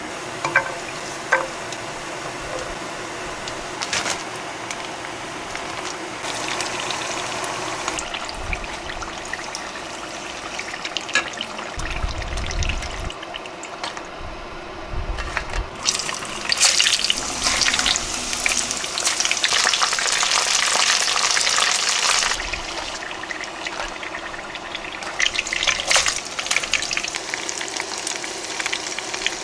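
Home kitchen cooking sounds: water and food sizzling and being stirred, with scattered clicks and knocks of utensils.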